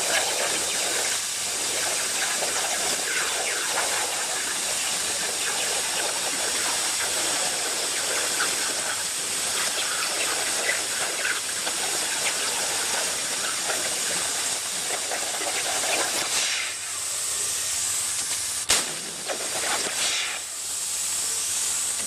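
CNC plasma cutter's torch cutting, a steady loud hiss of the plasma arc and gas jet. About three-quarters of the way through it falters and wavers, with one sharp crack.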